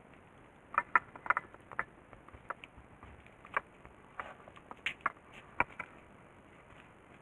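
Irregular light clicks and taps, a dozen or so spread over about five seconds and starting about a second in, over a faint steady hiss.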